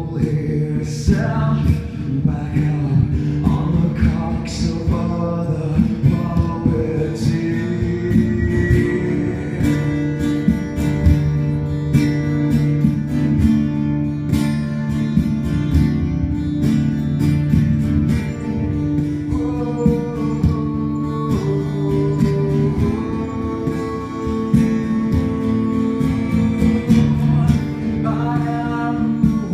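Live acoustic guitar strummed through a PA, with a man's voice singing in places, most clearly near the end.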